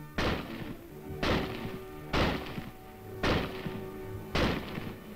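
M1 Garand .30-06 rifle firing semi-automatically: five sharp shots about a second apart, each with a short fading tail. Background music plays under the shots.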